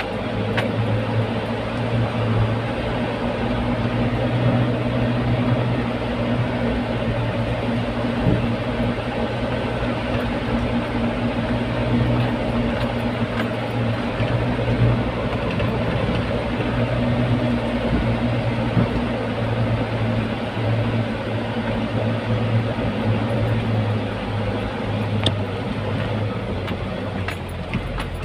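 Truck's diesel engine running steadily while driving, heard from inside the cab, with a low drone that swells a little now and then.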